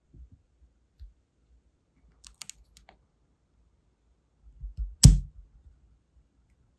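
Small taps and clicks as a freshly stamped sealing-wax seal is handled on a silicone mat, then one sharp click about five seconds in as the hardened wax seal is set down on a rose quartz coaster.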